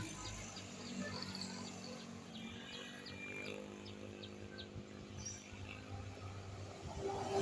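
Quiet roadside lull: a small bird chirps about three times a second through the first half, over the low hum of an approaching vehicle's engine that grows louder near the end.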